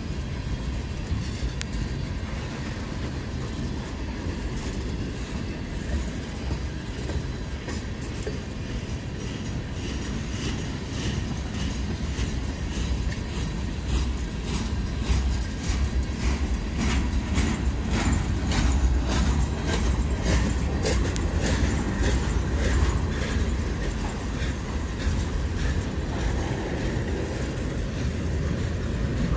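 Freight cars of a slow-moving manifest train rolling past: a steady low rumble of steel wheels on rail, with a run of sharp clicks and clunks from the wheels over the track, thickest in the middle of the passage.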